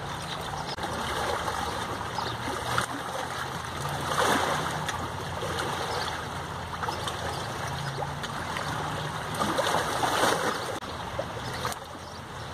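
River water washing against a rocky bank: a steady rush that swells twice, about four seconds in and again around ten seconds in.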